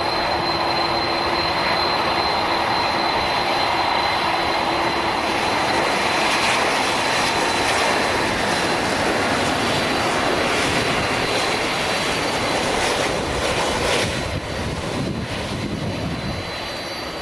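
Boeing 777-200 airliner on final approach, its twin jet engines making a steady loud rushing noise with a thin high whine. The noise drops somewhat about fourteen seconds in, as the plane nears the runway.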